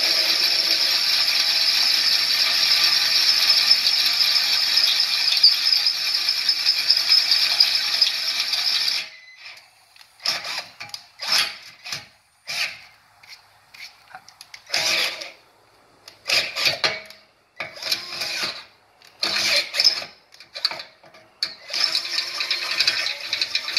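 Cordless drill boring a hole, running steadily at full speed for about nine seconds and then stopping abruptly. After that it runs in a string of short bursts on the trigger, each under a second.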